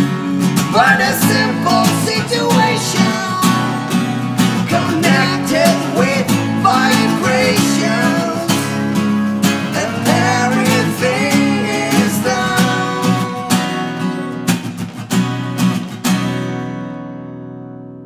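Acoustic guitars strummed with male voices singing, the song closing on a last strummed chord about sixteen seconds in that rings and fades away.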